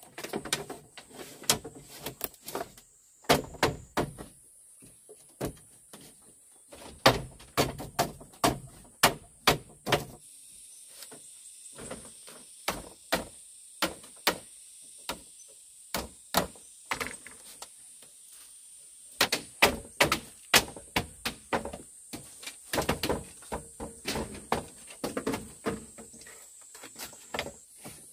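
Irregular knocks, taps and thuds, some in quick runs of several a second, with quieter stretches between them.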